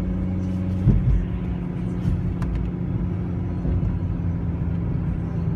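Steady engine and road rumble inside a moving car's cabin, with a brief thump about a second in.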